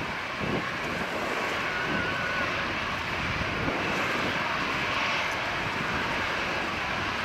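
Boeing 737-700 airliner taxiing, its two CFM56-7B turbofan engines running at taxi power with a steady jet whine.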